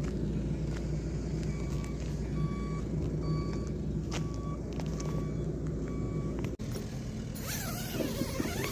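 A motor vehicle's engine running steadily, with a short electronic beep repeating about every 0.7 seconds. About two-thirds of the way through the sound cuts off abruptly and gives way to rustling.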